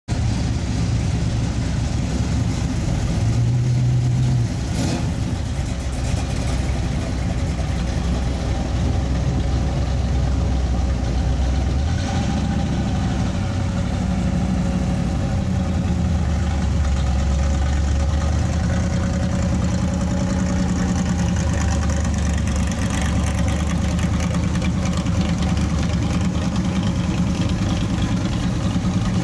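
Engines of classic American cars running at low speed as they roll past one after another, a deep steady engine note throughout. The nearest engine is louder for the first four seconds or so, then drops away.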